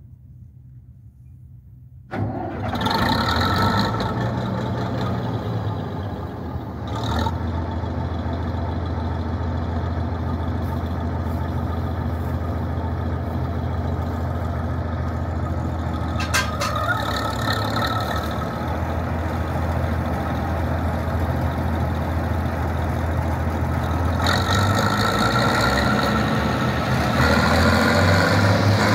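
Bizon Z056 Super combine harvester's diesel engine starting about two seconds in, catching at once and settling into a steady run. It gets louder near the end as the combine pulls away.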